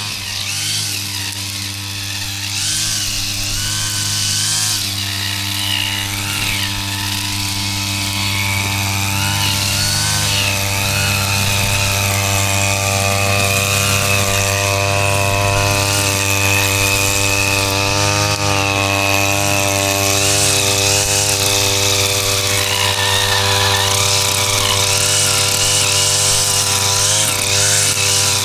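Two-stroke gasoline grass trimmer running steadily at high speed, a buzzing engine note that holds nearly the same pitch with small wavers. It grows a little louder over the first few seconds.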